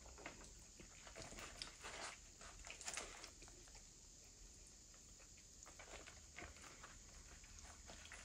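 Near silence with faint, scattered small clicks and mouth noises of someone eating and chewing.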